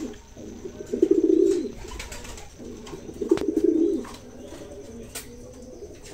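Racing pigeons cooing: two loud bouts of low, throbbing coos about a second and about three seconds in, with softer cooing between and afterwards.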